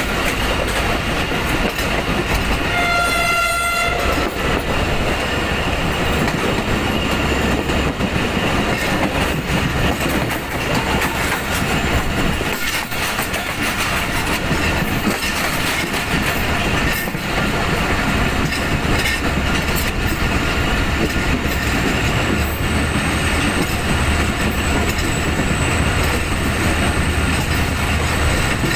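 Passenger train running at speed, heard from an open coach window: a steady rumble and rattle of wheels on rails. About three seconds in, the train's horn sounds once, a single note held for about a second.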